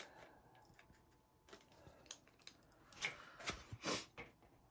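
Pastel pencil strokes on Pastelmat sanded pastel paper: faint short scratches and ticks as grass blades are drawn in, with a few louder strokes about three to four seconds in.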